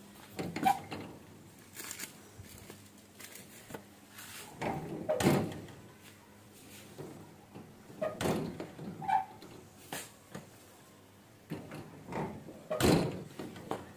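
Irregular knocks, clicks and rustling of a cupboard being opened and things inside it being handled, with the loudest knock near the end.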